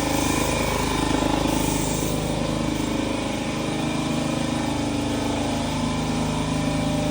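A motor runs steadily with a constant low hum, while primer is sprayed with a hiss for about the first two seconds.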